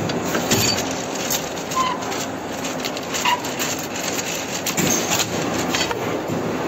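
CNC oil duct bonding machine running: a steady mechanical rattle with irregular clicks and knocks, and a couple of brief squeaks.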